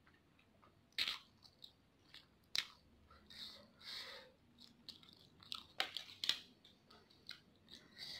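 Close-up eating sounds: chewing and slurping a mouthful of spicy instant noodles, with a few sharp clicks scattered through.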